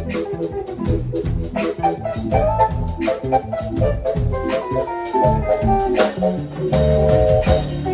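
Instrumental music: sustained chords and a bass line over a steady drum beat.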